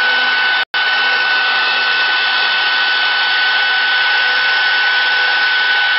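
CNC router spindle running steadily while engraving wood, a constant high whine over a hiss. It breaks off for an instant under a second in, then resumes unchanged.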